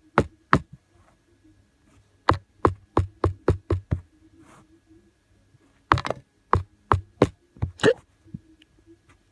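Hard knocks in quick runs: two at the start, a run of about seven from about two seconds in, and another run of about six from about six seconds in. This is knocking by someone trapped under a bed, hoping to be heard and let out.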